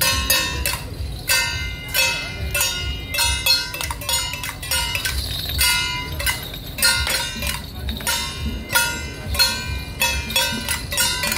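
Temple-procession percussion: ringing strikes of metal gongs and cymbals in a driving beat about twice a second, over a low drum.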